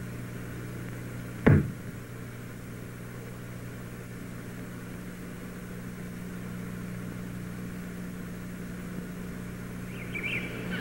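Steady electrical hum on an old film soundtrack, with one sharp knock about one and a half seconds in. Birds start chirping near the end.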